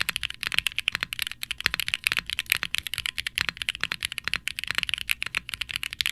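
Fast, continuous typing on a mechanical keyboard with HMX Sonja linear switches (POM stems, PA66 housings), an FR4 plate, an undampened aluminium case with a brass weight and GMK double-shot ABS keycaps: a steady stream of sharp clacks, many keystrokes a second. The undampened case gives it a resonant clack.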